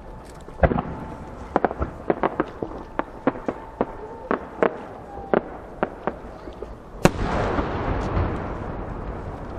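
Aerial firework shells: a run of sharp cracks and pops for several seconds, then one much louder 10-go (12-inch) shell burst about seven seconds in, followed by a long rolling echo that fades slowly.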